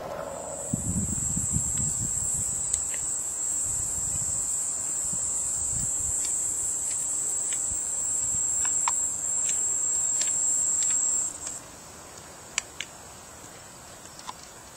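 A steady high-pitched insect trill, held at one pitch, that cuts off about eleven seconds in. Afterwards only faint wind noise and a few light ticks remain.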